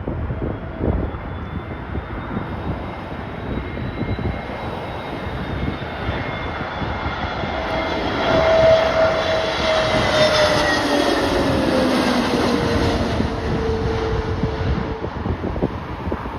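Jet airliner engines on approach to land, growing to a whine that is loudest about halfway through and then falls in pitch as the aircraft goes past. Gusty wind buffets the microphone throughout.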